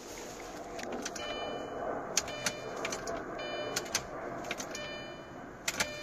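Relays in a B6 Audi A4 1.8T humming in three short stretches with sharp clicks between them while the key is on and the engine does not crank: the no-crank fault of this car.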